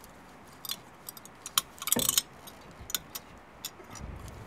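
Scattered metallic clicks and clinks as a rusty rear disc-brake pad is worked at in its caliper bracket with a screwdriver, with a short cluster of clinks about two seconds in.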